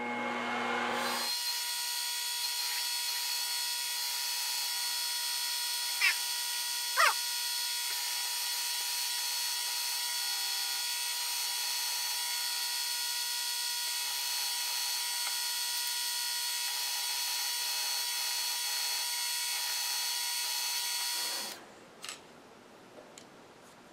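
A twist drill in a milling machine spindle boring a hole in an aluminium bar: a steady motor and cutting whine made of many high tones, with two brief falling squeals about six and seven seconds in. It stops shortly before the end.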